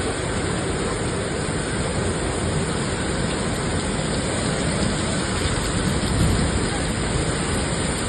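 Heavy tropical rain pouring down, a steady dense hiss with no letup.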